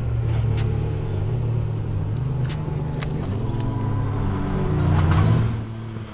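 Rally buggy engine running, getting louder about five seconds in and then dropping away.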